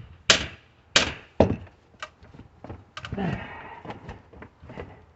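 Small sledgehammer blows on a wooden pallet as the boards are knocked apart: three hard strikes about half a second apart in the first second and a half, then softer knocks and taps.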